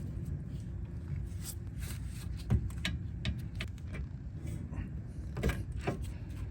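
Scattered light clicks and knocks of a brake caliper being swung back down over freshly installed rear brake pads, the loudest about two and a half seconds in, over a steady low hum.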